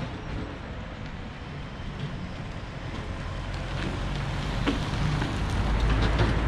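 A small van towing a trailer-mounted wood chipper drives up and past, its engine and tyre noise growing steadily louder as it nears, with a few light knocks in the second half.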